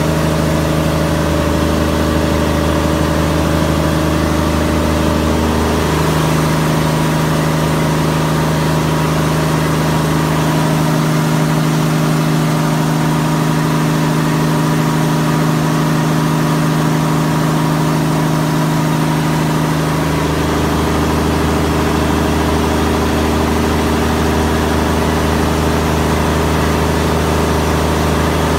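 Diesel engines running steadily and loudly in a fishing boat's engine room. Their mix of pitches shifts about six seconds in and again about two-thirds of the way through.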